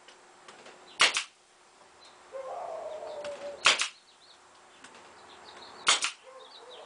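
Pneumatic nail gun firing three times, two to three seconds apart, each a sharp double crack as it drives a nail through the plywood wall paneling.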